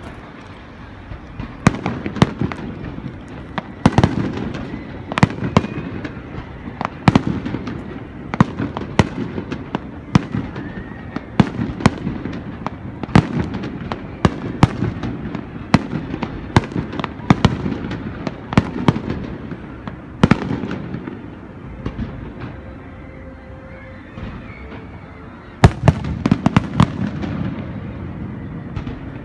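Aerial firework shells bursting overhead, one sharp bang after another in quick, irregular succession, each with a lingering low echo. After a short lull near the end, a loud volley of bursts sets off again.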